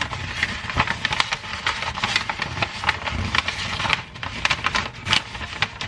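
Wrapping paper crinkling and rustling as hands fold and press it at the top of a gift box: a dense, irregular run of crackles.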